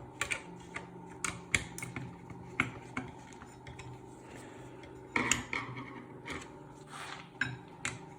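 Light metal-on-metal clicks and clinks, irregular and handled, as a metal part is fitted onto a welding machine's panel-mount DINSE cable connector, with a busier run of clinks about five seconds in.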